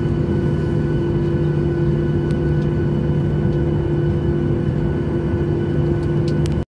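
Jet airliner engines and cabin noise heard from a window seat on the runway just after landing: a steady drone with a constant low hum and fainter whines above it.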